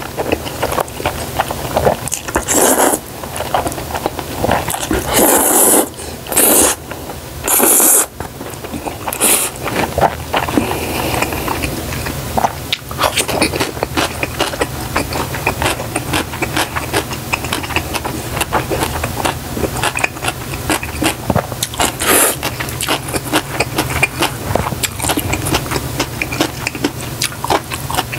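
Jjajangmyeon noodles being slurped in several loud pulls over roughly the first ten seconds, followed by steady wet chewing of a full mouthful of noodles.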